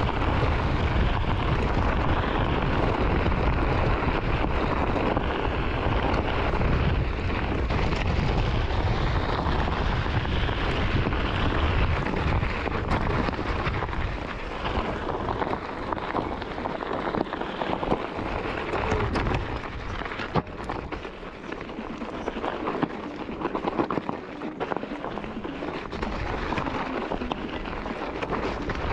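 Onewheel board's tyre rolling over a desert gravel trail, a steady crunching hiss, with wind buffeting the microphone. The low wind rumble is heavy in the first half and eases about halfway through, leaving more of the gravel crackle.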